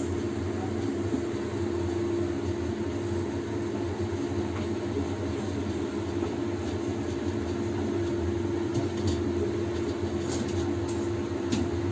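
Steady mechanical hum of a running motor, holding one constant tone over a low rumble, with a few faint clicks in the last few seconds.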